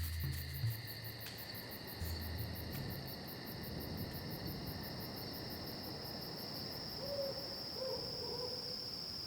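Night-time insect chorus of steady high-pitched trills, like crickets. A faint wavering call rises over it around seven to eight and a half seconds in.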